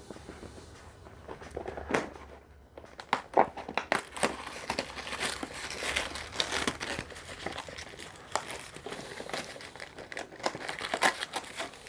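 Advent calendar packaging being torn and worked open by hand: irregular crinkling and tearing that starts sparse and grows busier from about four seconds in.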